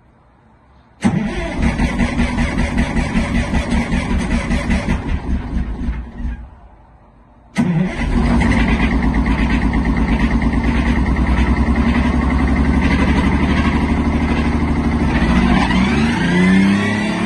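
Bus's Detroit Diesel 6V92 two-stroke V6 cold-starting. It fires with a loud, uneven pulsing for about five seconds and drops away. A second attempt about seven and a half seconds in catches, and the engine runs steadily, its pitch swelling and falling near the end.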